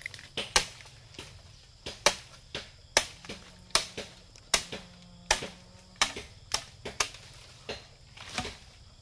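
Bamboo being chopped with a blade: a run of sharp, ringing strokes at about two a second, unevenly spaced.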